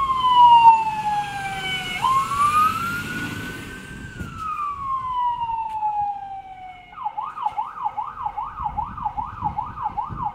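Fire engine siren on an emergency run, first in a slow wail that falls, rises and falls again, then switching about seven seconds in to a fast yelp of about three pitch cycles a second. A low engine rumble runs beneath it.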